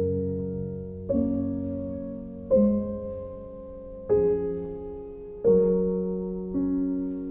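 Slow solo piano music: sustained chords, a new one struck about every second and a half and left to ring and fade.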